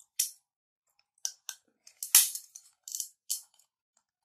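Kitchen scissors cutting through a cooked mud crab's shell: a series of sharp snips and cracks, the loudest crunch about two seconds in.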